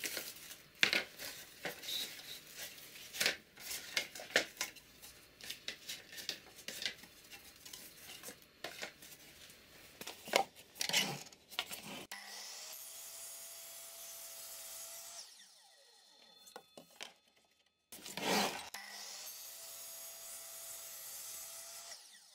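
Thin wooden boards knocking and clattering as they are handled and stacked, with sharp irregular knocks. Then an AEG sliding miter saw runs twice, each time winding down, with a single knock in the short gap between the two runs.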